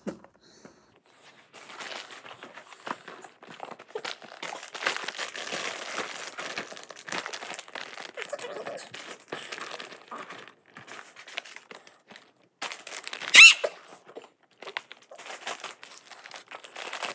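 Snack bags and wrappers crinkling and rustling as a pile of packaged snacks is handled and set out together. A brief, high squeak rings out late on and is the loudest sound.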